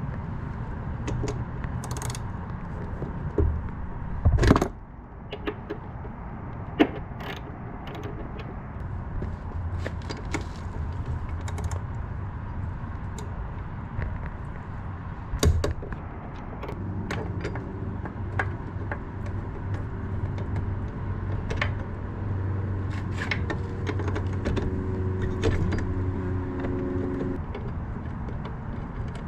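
Metal hand tools clicking and clinking against bolts while the rear foot peg is unbolted from a motorcycle, with a few sharper knocks, over a low steady hum that grows stronger in the second half.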